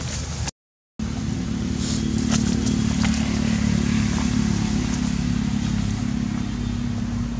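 An engine running steadily at an even low pitch, with a few light clicks over it; the sound drops out completely for about half a second near the start.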